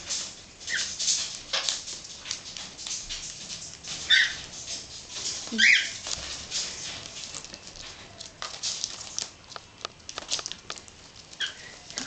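Princess parrots giving a few short squeaky chirps, the loudest about four and six seconds in, amid light rustling and clicking of gift-wrapping paper as they move over the wrapped presents.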